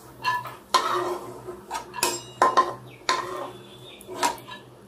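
Slotted spatula scraping and clinking against a kadai as fried cashews are lifted out of the hot ghee: a string of sharp clinks and scrapes, about two a second, some with a short metallic ring.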